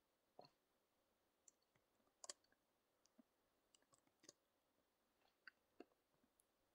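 Faint, irregular clicks of an ASUS Q550LF laptop's keyboard keys being pressed, in a quiet room.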